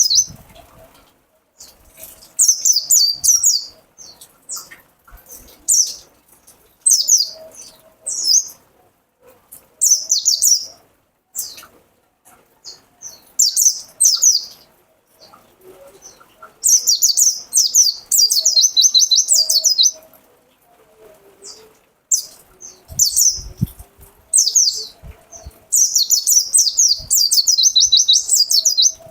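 White-eye (pleci) singing: bursts of rapid, high twittering notes repeated every second or two, with two longer unbroken runs of song in the second half.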